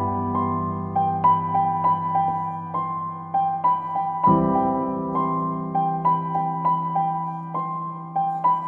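Background music: a gentle piano melody of short repeated notes over held low chords, the chord changing about halfway through.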